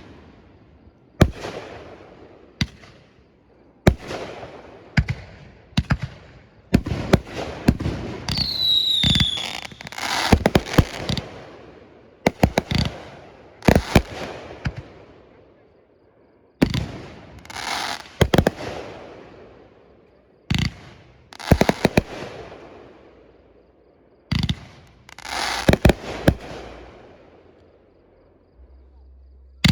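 Fireworks display: aerial shells bursting one after another, each sharp report followed by a rolling echo, coming in clusters with short lulls between. A falling whistle sounds about nine seconds in.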